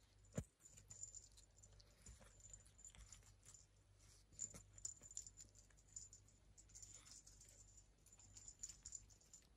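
Faint, irregular clicking and smacking of a Persian kitten licking a creamy treat from a squeezed sachet, with one soft knock about half a second in.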